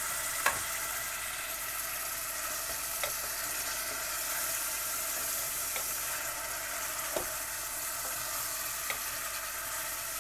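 Chicken pieces and masala sizzling steadily in a stainless steel saucepan while being stirred with a spatula, with a few short knocks, the loudest about half a second in.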